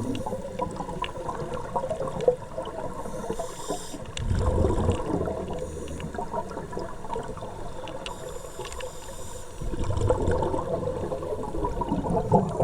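Water sloshing and trickling, with swells of low rumbling noise about four seconds in and again near the end.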